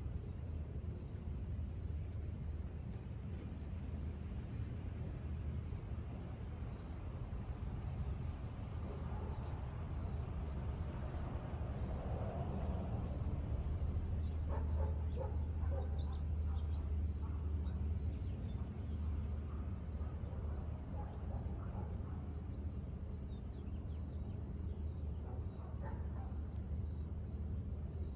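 Cricket chirping steadily, a high note pulsed at an even rhythm of a few chirps a second, over a constant low rumble.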